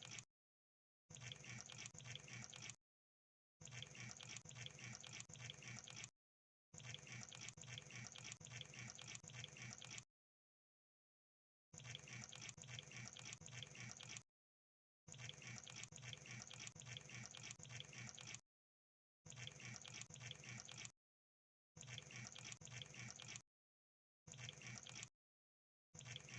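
Crab sound effect: dense, fast crackling clicks in about ten bursts of one to four seconds, each starting and stopping abruptly with short dead silences between them.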